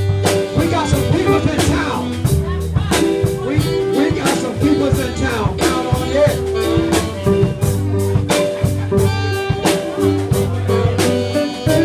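A man singing into a microphone over a live band playing blues, with electric guitar, keyboard and drums.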